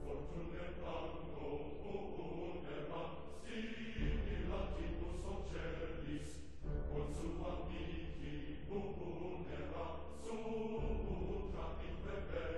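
Choral music: a choir chanting over a steady low accompaniment.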